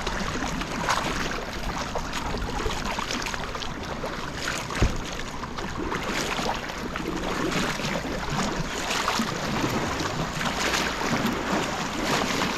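Sea water washing and splashing with wind buffeting the microphone, a steady rushing noise with many small irregular splashes.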